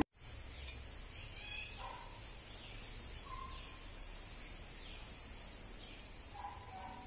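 Insects keeping up one steady high-pitched drone, with birds calling now and then: brief downward chirps and a few short whistled notes.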